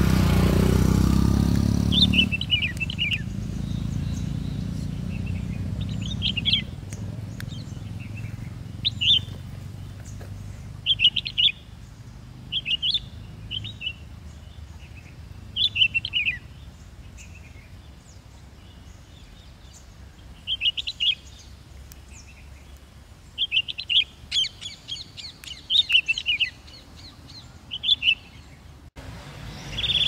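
Red-whiskered bulbul calling in short phrases of a few quick notes, some falling in pitch, repeated every one to three seconds. A low engine rumble is loudest at the start and fades over the first few seconds.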